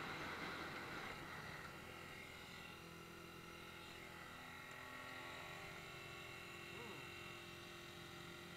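Dirt bike engine running at a steady speed, heard from the rider's own bike, with wind noise on the microphone that fades over the first second or two.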